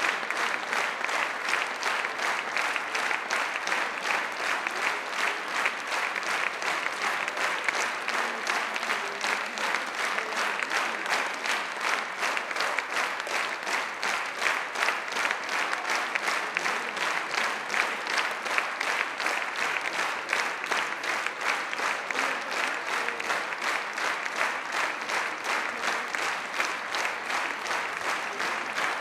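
Audience applauding, with dense, steady clapping throughout.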